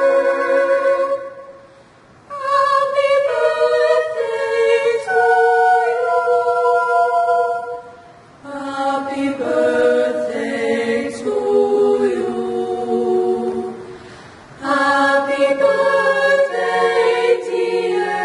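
Young women's choir singing a cappella in several-part harmony: held chords sung phrase by phrase, with short breaks between phrases.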